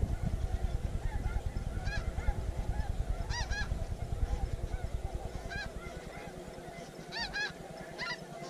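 Snow geese calling: a constant chorus of many overlapping honks, with a few louder calls standing out. Under them, a low rumble fades out about six seconds in.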